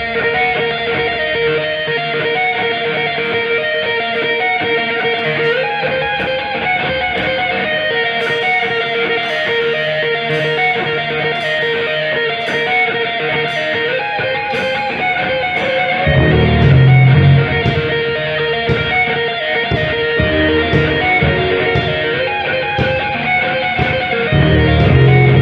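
Instrumental band music led by guitar. Regular high ticks join about eight seconds in, and a heavy low bass comes in about halfway through, making it louder.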